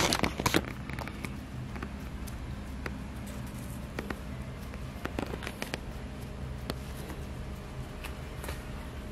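Scattered light clicks and rustles of a cat pawing and scrabbling at a cloth floor mat while hunting a cockroach, loudest in a quick cluster at the start, over a steady low hum.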